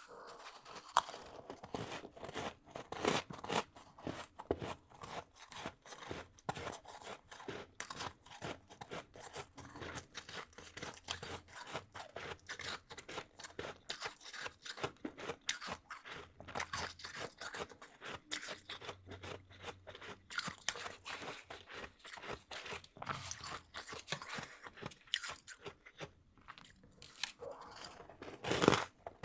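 A person biting and chewing soft, powdery freezer frost up close: a dense run of irregular crunches throughout, with one louder crunch near the end.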